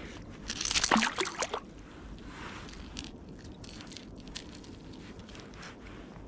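A brief burst of splashing and sloshing water about a second in, then faint water and small knocks.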